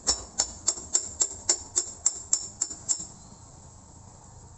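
Steady, sharp metallic tapping, about three and a half strikes a second, with a light ring to each strike. It stops about three seconds in.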